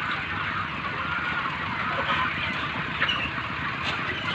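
A large flock of chickens calling all at once: a dense, continuous chatter of overlapping clucks and peeps, over a steady low rumble.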